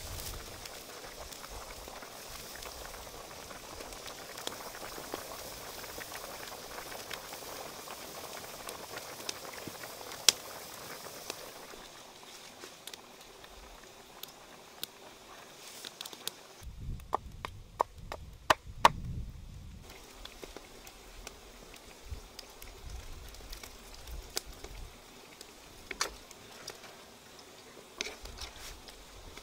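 A wok of chicken curry bubbling and popping at the boil for the first ten seconds or so. It then gives way to quieter sound with scattered clicks and a short run of low knocks and handling noise a little past halfway.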